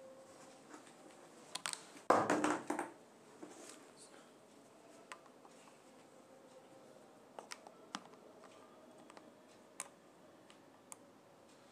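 Scattered light clicks and taps in a small room, with one louder, brief burst of noise about two seconds in.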